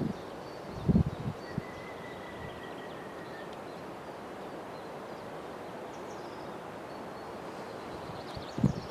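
Outdoor ambience at a rural railway crossing: faint bird chirps over a steady background hiss, with wind buffeting the microphone about a second in and again near the end.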